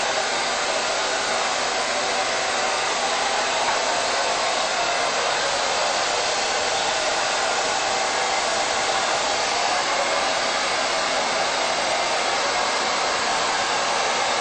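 Handheld hair dryer running steadily as hair is blow-dried with a round brush, a constant whooshing blow of air with no change in speed.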